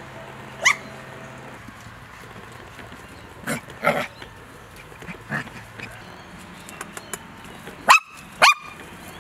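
Mini doodle puppies (Bordoodle x cavoodle cross) giving short, high yips and barks, about six in all, with two of the loudest close together near the end.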